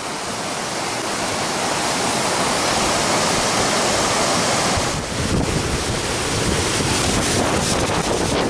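Steady rushing of Upper Yosemite Fall's water plunging over the cliff edge close by. From about five seconds in, wind buffets the microphone with uneven low rumbling gusts over the water noise.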